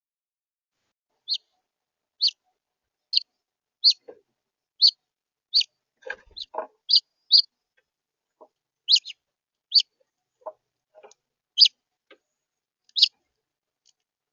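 House finch giving short single chirps over and over, about one a second, with a few faint low knocks in between.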